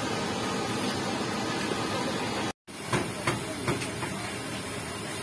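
Steady background noise, cut off abruptly about halfway through, then resuming with three sharp clicks of a metal spoon against a plate.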